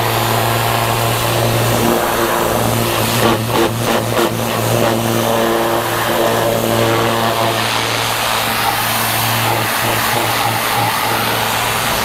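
A machine's motor running steadily with a constant low hum, with a brief clatter of knocks about three to four seconds in.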